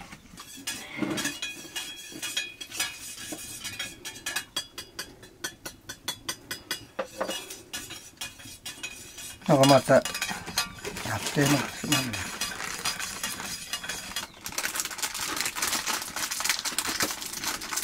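Metal spoon stirring and clinking against the inside of a stainless steel mug, a run of quick clinks through the first half.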